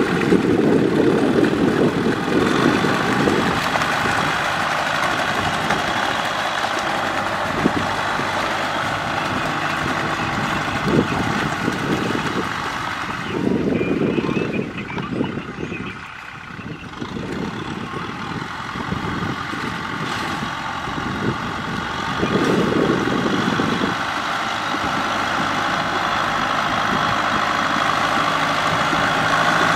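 Kubota M6040SU tractor's diesel engine running steadily under load as it pulls a rear rotary cultivator through deep mud. A deeper rumble swells for a couple of seconds near the start, about halfway through, and again near the end.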